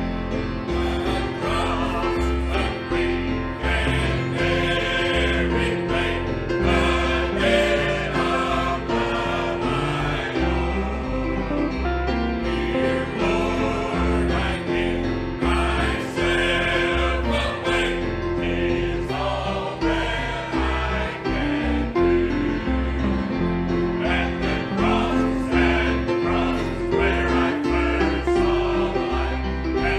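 Gospel music: choir singing over an accompaniment with a steady bass beat.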